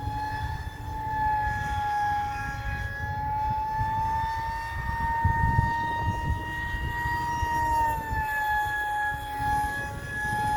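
Electric motor and pusher propeller of a 3D-printed RC F-22 jet model whining steadily in flight. The pitch rises a little partway through and eases back down near the end, over a low rumble.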